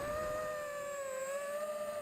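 E-Turbine 250 v2 racing quadcopter's brushless motors and propellers whining at a steady pitch in flight, the pitch dipping slightly a little over a second in and rising again.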